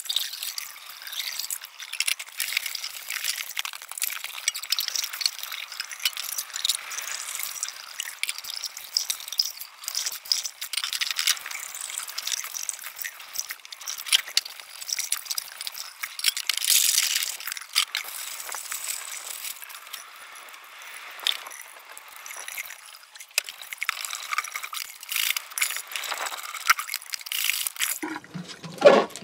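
Tin cans and plastic food packaging being rinsed in a sink: water splashing from the tap, with frequent clinks and rattles as the cans and containers are handled. Near the end the handling gets louder as a plastic drink bottle is squeezed and rubbed under the water.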